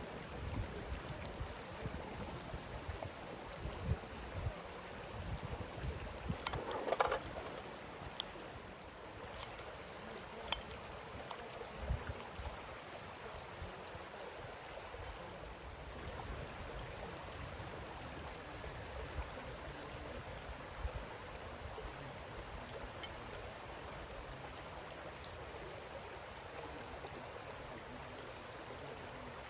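Steady rushing noise of running water, with low rumbling thumps in the first few seconds and a brief sharper sound about seven seconds in.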